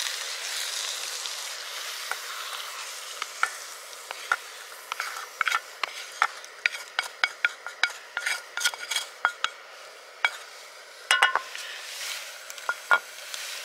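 Hot meat-and-tomato sauce sizzling in a camping frying pan, fading over the first few seconds as it is scraped into a pot of rice. A wooden spatula then makes a run of sharp taps and scrapes against the pan and pot.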